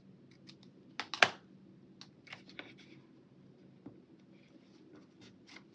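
Small scissors snipping twice in quick succession about a second in, cutting out a sticker, followed by faint ticks and rustles of paper as the sticker is handled and pressed onto a planner page.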